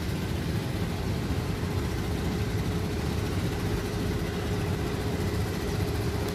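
Boat engine running steadily at idle: a low, even rumble with a constant hum above it.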